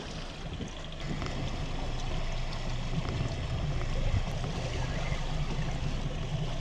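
Sea water sloshing and trickling against the hull of a small open boat, with a steady low rumble underneath.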